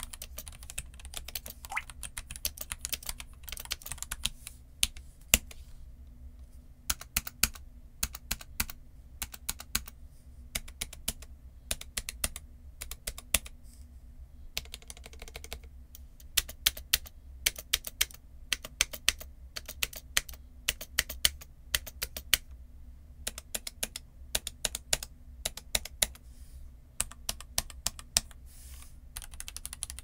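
Typing on a Royal Kludge RK F68 keyboard with low-profile RK LoPro Red switches and LoPro ST keycaps. There is a quick run of keystrokes at first, then single key presses and short bursts with pauses between.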